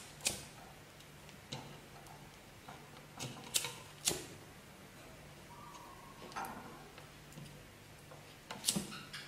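Irregular light clicks and taps of a plastic wall switch and its wires being handled as the wires are fitted to the switch, over a faint steady low hum.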